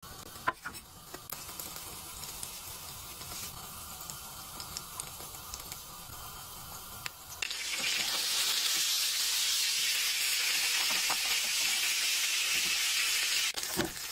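A block of frozen macaroni and cheese frying in grease in a nonstick pan, sizzling steadily. The sizzle turns much louder about halfway through, and there is a short knock near the end.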